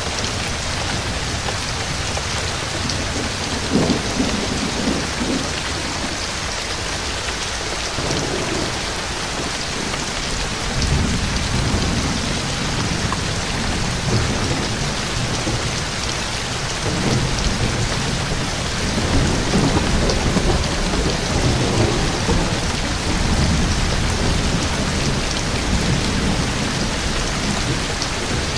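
Steady rain hissing, with thunder rumbling under it: a first low rumble about four seconds in, then longer rolling thunder through much of the second half.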